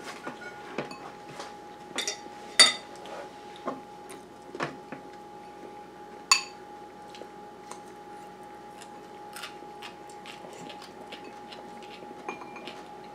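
Forks clinking and scraping against ceramic bowls as two people eat, in scattered clicks; the loudest come about two and a half seconds in and again around six seconds. A faint steady hum runs underneath.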